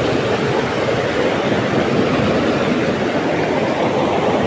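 Small waterfall and creek water rushing over rocks: a loud, steady, even rush with no breaks.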